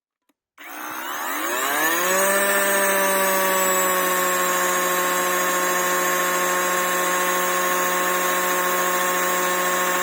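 Parkside Performance PPKSA 40-LI A1 cordless chainsaw's brushless motor spinning up about half a second in, its pitch rising for about a second and a half. It then runs at a steady high whine at full speed in speed level 2, at about 11,000 rpm.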